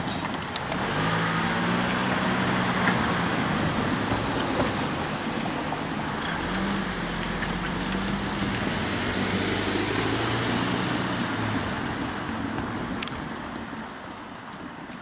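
Road traffic: motor vehicles driving past over the crossing, their engine hum coming and going twice and fading away near the end.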